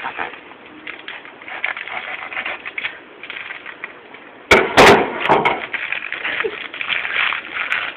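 Plastic packet crinkling and rustling as it is pulled at to be opened, with one loud sudden burst about four and a half seconds in.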